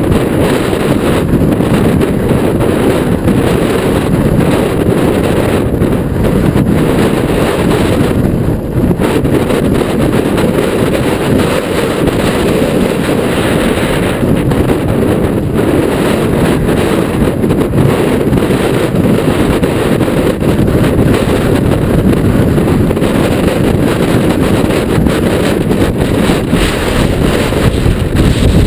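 Strong gusty wind buffeting a helmet or chest camera microphone during a mountain bike ride, a loud steady rumble.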